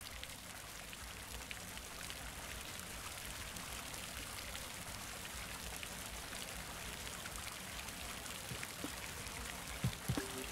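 Garden fountain's water jets splashing into their round basin, a steady hiss of falling water, with a few knocks near the end.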